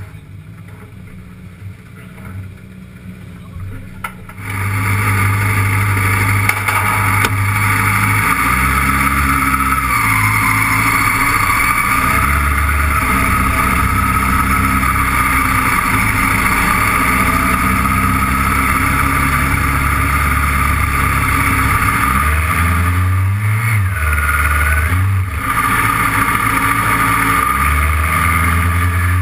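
DSP XK600 autocross car's engine heard onboard: quiet at low revs for the first few seconds, then loud from about four seconds in as the car moves off at low speed, the engine note stepping up and down. A short rev rises and falls in pitch about three quarters of the way through.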